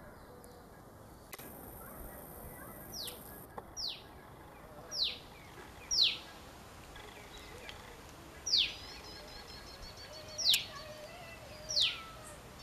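A bird calling over and over: short, sharp whistled notes that slide downward, one every second or two, starting a few seconds in.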